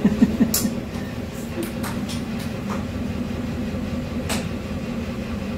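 Steady low drone of a ship's engine and machinery running while the ship is under way in heavy seas, with a few sharp clicks scattered through.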